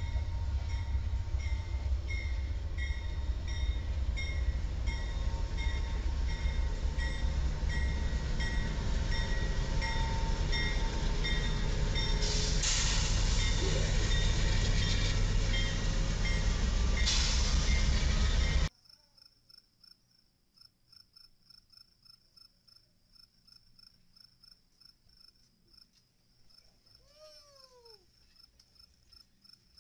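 Amtrak GE P42DC diesel locomotive and its passenger train running past at close range, with a bell ringing steadily and two bursts of hiss. About two-thirds of the way in the train sound cuts off abruptly to crickets chirping steadily, with a brief falling chirp near the end.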